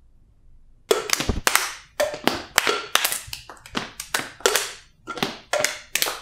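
Several people clapping their hands in a fast, uneven rhythm, starting about a second in.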